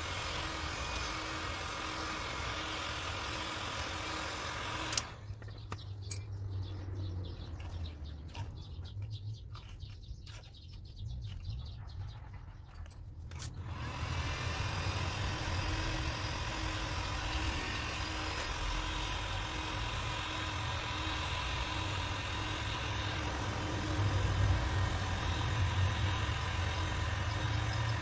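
A machine running steadily: a hiss over a low hum. The hiss cuts off suddenly about five seconds in and comes back about nine seconds later, while the hum carries on.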